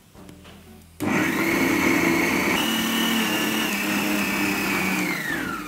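Electric mixer grinder (mixie) starting suddenly about a second in and running steadily, grinding onion, green chilli, ginger and garlic into a paste in a small stainless steel jar. Its whine steps up slightly in pitch partway through, and near the end it is switched off, the whine falling as the motor winds down.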